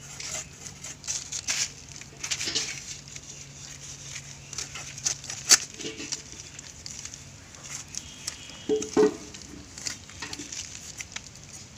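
Fish being scraped and cut on a bonti, a fixed upright blade: repeated rasping scrapes and sharp clicks as the ash-coated fish is drawn against the edge, with one loud knock about five and a half seconds in.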